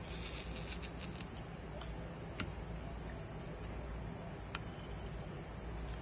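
A steady high-pitched chirring drone over a low hum, with a few faint ticks, a small cluster about a second in and single ones about two and a half and four and a half seconds in.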